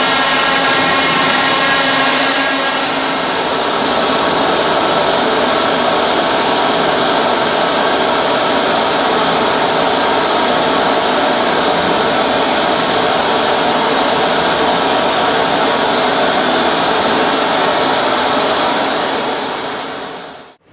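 Loud, steady machinery drone in an offshore oil platform's wellhead and process area: a dense hiss with several steady tones that thin out after about three seconds. It fades out at the very end.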